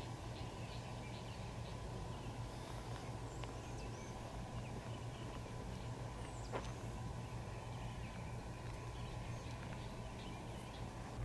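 Distant EMD diesel locomotive, an F40PH-2, running with a steady low rumble as it approaches. Birds chirp over it, and one sharp falling whistle comes about halfway through.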